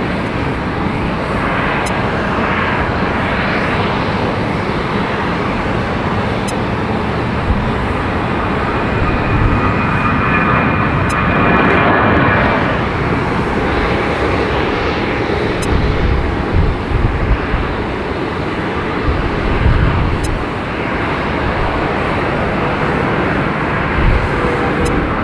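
Jet airliner engines running on the runway: a loud, steady roar with a high engine whine strongest about ten to twelve seconds in, and uneven low rumbling later on.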